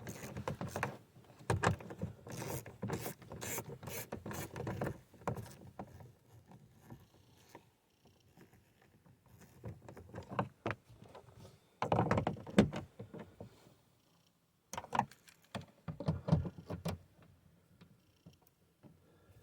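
Hand ratchet on a 10 mm socket clicking in several bursts, with knocks and clatter of tools, as the door panel's screws and bolts are run in snug.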